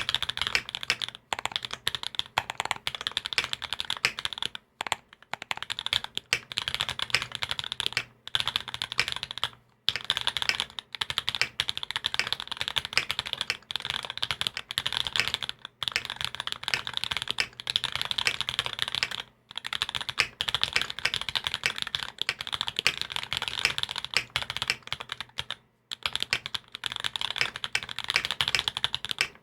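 Fast typing on a custom mechanical keyboard: Sp Star Meteor White linear switches lubed and filmed, with a carbon fibre plate, Thinsulate dampening and GMK Taro keycaps. A dense stream of key clacks breaks off for a moment every few seconds.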